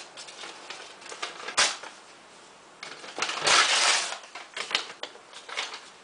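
Someone rummaging for a sheet of paper: scattered clicks and knocks, one sharp knock about a second and a half in, and a longer rustle between about three and four seconds.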